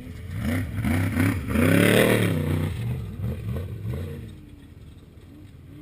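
Off-road race vehicle's engine revving up and down repeatedly as it goes past, loudest about two seconds in and then fading into the distance.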